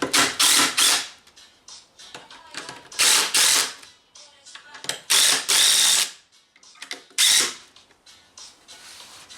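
Impact driver driving screws in four short runs of about half a second to a second each, with pauses between them.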